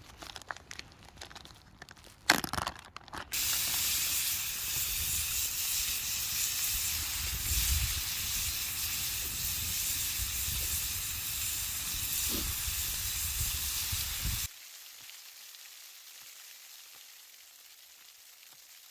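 A few knocks and clicks, then a camp stove burner running with a steady loud hiss; about fourteen seconds in the hiss drops away suddenly to a faint hiss with small ticks.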